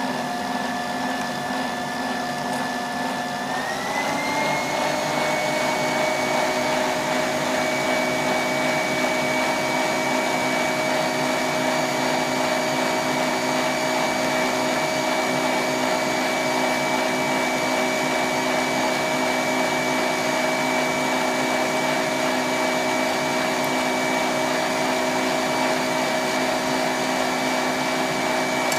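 Electric stand mixer running with its whisk beating cake batter: a steady motor whine that steps up in pitch about three to four seconds in as the speed is raised, then holds.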